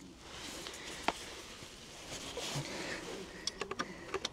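A 17 mm wrench tightening a motorcycle's oil drain plug back in after draining the oil: sharp clicks, one about a second in and a quick cluster near the end, over faint handling noise.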